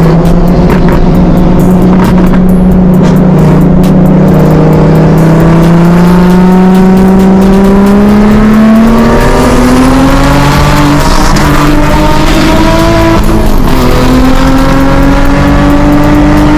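A car engine under hard acceleration, loud, its pitch climbing steadily for about thirteen seconds. Near the end the pitch drops for a gear change, then climbs again.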